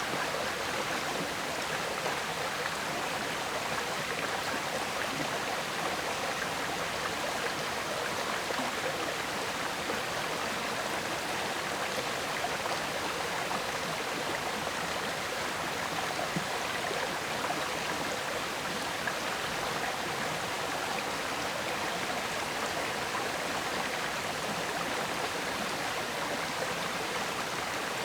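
River water flowing and gurgling steadily, an unbroken rushing sound.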